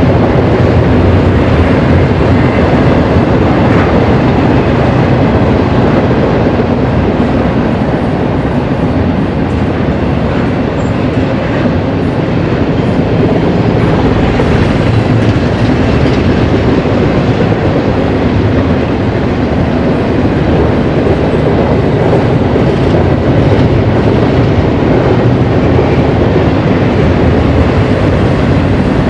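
Double-stack intermodal container well cars of a freight train rolling past, a steady loud noise of steel wheels running on the rails.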